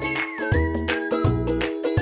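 Background music with a steady beat, a bass line and a high melody line that bends in pitch.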